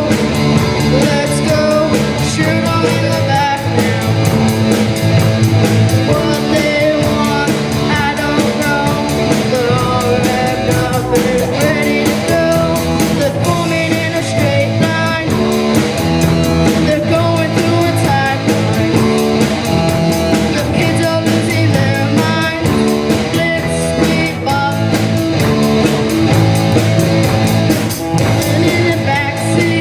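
Live punk-rock band playing: a child singing through the PA over electric guitar, bass guitar and drums with a steady beat.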